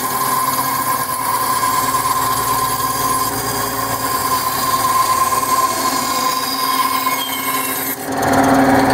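Benchtop bandsaw running steadily as its blade cuts through a block of balsa wood along a traced profile. The tone shifts a little under a second before the end.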